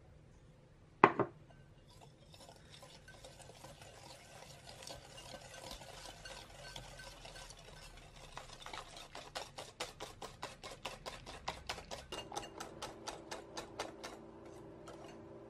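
A wire balloon whisk beating egg yolks and cane sugar in a glass bowl. The wires scrape and click against the glass, slowly at first and then in fast, even strokes of about three or four a second, before stopping near the end. One sharp knock about a second in is the loudest sound.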